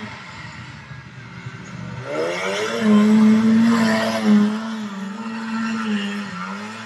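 A crosskart's KTM 525 single-cylinder four-stroke engine revving up hard about two seconds in. It passes close by, loudest in the middle, with the tyres spraying dirt over the engine note.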